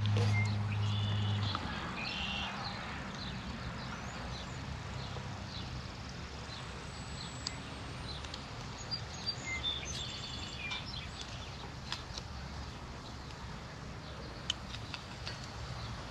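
Songbirds chirping over a steady outdoor hiss. A low, steady hum is the loudest sound for the first second and a half, and faint scattered ticks come throughout.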